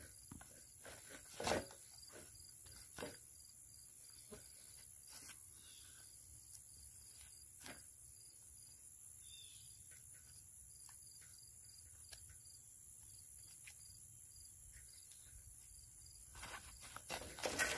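Knife blade scraping and shaving tinder off a wooden board, in scattered short scrapes and knocks. The loudest comes about a second and a half in, and there is a busier run of scraping near the end.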